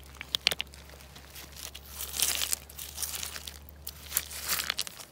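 River gravel clacking and scraping as a hand shifts wet stones: a few sharp clacks about half a second in, then longer rustling scrapes around two seconds and again near the end.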